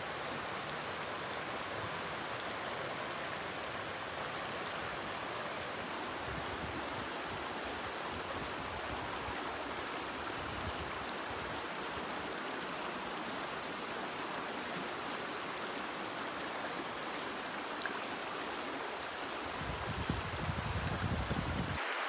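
Mountain trout stream running over rocky riffles and small rapids: a steady wash of moving water. Low rumbling bumps come in near the end.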